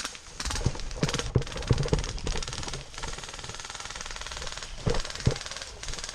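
Running footsteps thumping irregularly for the first three seconds, with two more heavy steps about five seconds in. Rapid full-auto airsoft gunfire rattles throughout.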